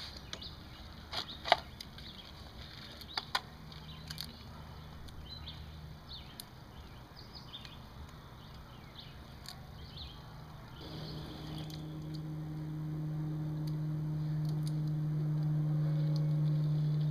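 Boiled crayfish shells being peeled by hand: a few sharp cracks and clicks of shell in the first few seconds. About eleven seconds in, a steady low motor hum comes in and grows louder.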